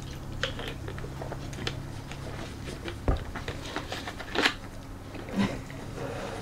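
Scattered small clicks and crinkles of a plastic soda bottle being drunk from and handled, with a low knock about three seconds in and a louder crackle a little after.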